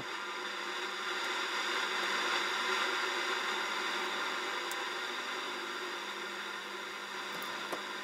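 FM radio static from a 1973 Universum W2758 flip clock radio's speaker, a steady rushing hiss that swells a little and then eases off as the tuning wheel is worked. It is the sign of poor reception with no clear station.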